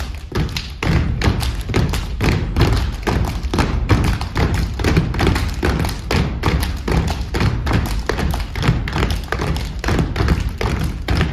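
Step team stepping in unison: boots stomping on the stage floor and hands clapping in a rapid, steady rhythm of sharp thuds and claps.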